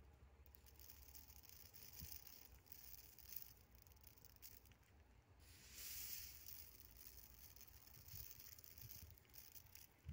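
Near silence, with a faint rustle of barley grain trickling from a hand about six seconds in.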